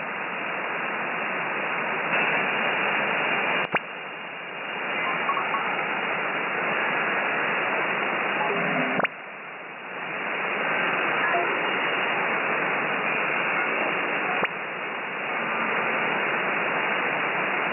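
Shortwave band noise from a FLEX-1500 SDR transceiver receiving SSB: a steady hiss cut off at about 3 kHz, the receive filter's width. Three sharp clicks break it, each followed by a brief dip in the hiss before it comes back up.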